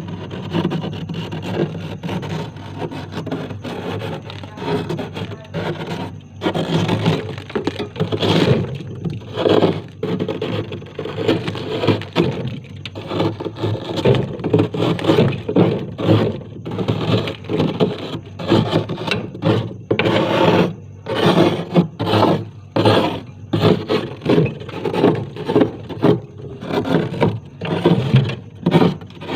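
Built-up frost and ice being scraped off the inside of a freezer, in repeated scraping strokes that fall into a quicker, more regular rhythm in the second half.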